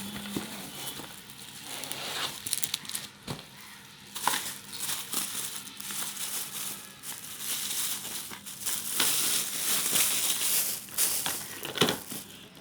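Plastic packaging crinkling and rustling as a parcel is unwrapped by hand, with irregular sharp crackles throughout.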